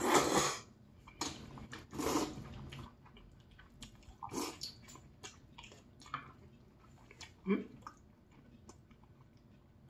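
Two people slurping and chewing black-bean-sauce noodles (jjajangmyeon). A few loud slurps come in the first two and a half seconds, then quieter wet chewing and small mouth clicks, with one more slurp near the middle.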